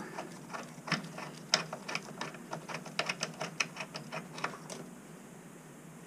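Sharp, irregular metallic clicks from a hand tool loosening the pilot assembly fittings of a natural gas water heater burner. The clicks stop about five seconds in.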